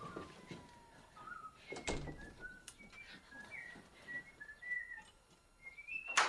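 Someone whistling a tune in short notes of varying pitch, starting with a falling glide. There are a couple of faint knocks, and a sharp click near the end.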